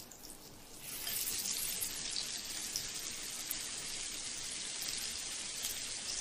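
Pepper-crusted steaks sizzling in a hot frying pan. A steady, even hiss starts about a second in as clarified butter goes into the pan.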